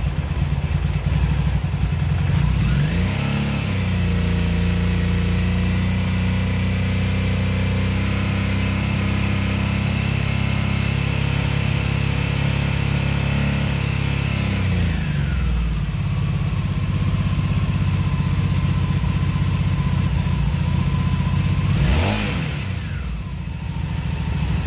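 2002 Honda Magna VF750C's V4 engine revving up about three seconds in and holding a raised, steady speed for about ten seconds, then dropping back to idle, with one quick rev up and down near the end. The idle is uneven, which the owner puts down to carburetors out of sync.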